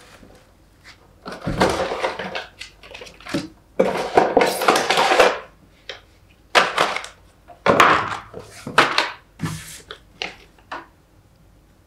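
Cardboard box and foam packaging being handled: rustling and scraping in irregular bursts, with a few short knocks.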